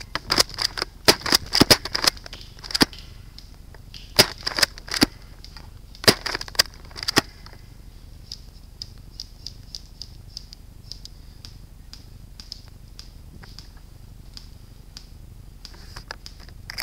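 Airsoft gunfire: sharp snapping shots in quick clusters through the first seven seconds, then only faint scattered ticks.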